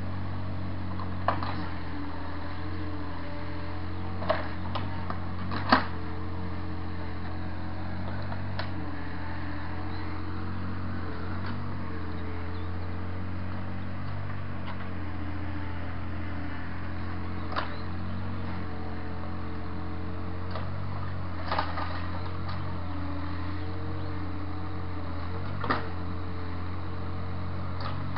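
Takeuchi mini excavator's diesel engine running steadily under work, its hum wavering slightly in pitch as the hydraulics take load. Several sharp knocks come through it, the loudest about six seconds in.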